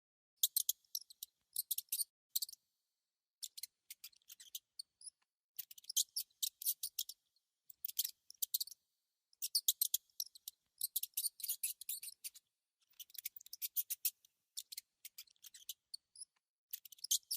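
Mouse making bursts of rapid, high-pitched clicks, with a couple of short squeaks near the middle and near the end.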